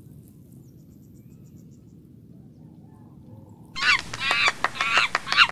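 A faint low rumble, then from a little under four seconds in a loud burst of harsh, rapidly repeated bird-like calls, six or seven in under two seconds, that cuts off suddenly.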